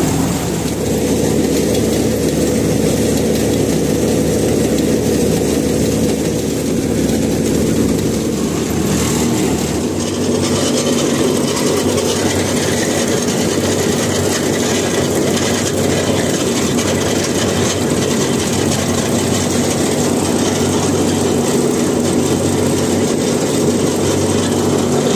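Tractor-mounted mini combine harvester running while harvesting paddy: the tractor engine and the threshing machinery make a loud, steady drone. The tone of the drone changes about ten seconds in.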